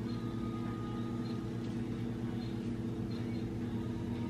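A steady low mechanical hum, like a motor or fan running, with no change in pitch or level.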